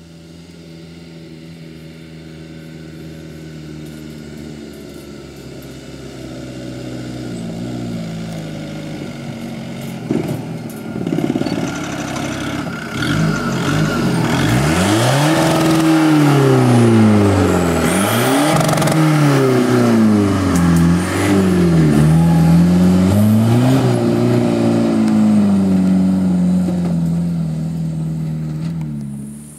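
Suzuki Samurai 4x4's engine growing louder as it approaches, then revving up and down over and over as it works its way along a rough off-road track, before easing a little as it pulls away.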